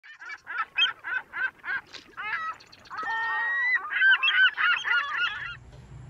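Animal calls: a rapid string of short calls, about four a second, followed by denser overlapping longer calls that stop shortly before the end.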